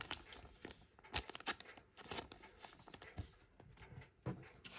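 Chrome trading cards being handled and flipped: irregular light clicks and short rustles of card stock and wrapper.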